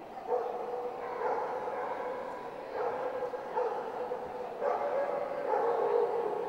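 A dog barking repeatedly, about one bark a second.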